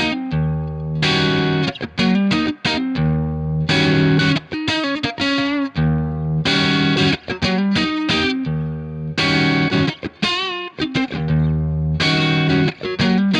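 Fender Stratocaster electric guitar played with overdrive through an amp, heard through the Universal Audio OX box's speaker-cabinet and microphone simulation. Sustained chords alternate with short single-note runs, with a wide vibrato on a held note about ten seconds in.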